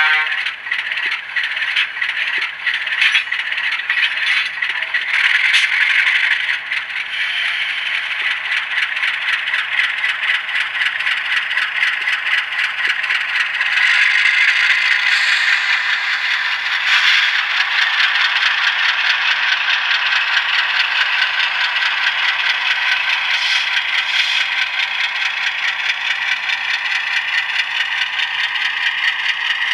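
LokSound sound decoder in an Atlas HO-scale RSD-5 model locomotive playing its ALCO diesel engine sound through the model's small onboard speaker: a rattly, tinny engine run with no deep bass. The sound is uneven, with clicks, for the first several seconds, then settles into a steady run.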